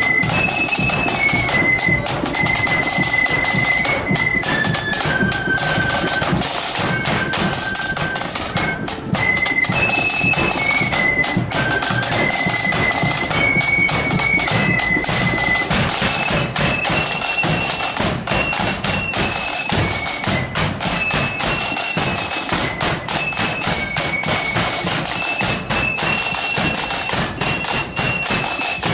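Marching flute band playing a tune: a high melody on flutes over a steady beat of snare and bass drums.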